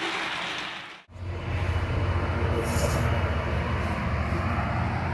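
A train's engine running with a steady low rumble, starting after an abrupt cut about a second in; before the cut, a steady hiss.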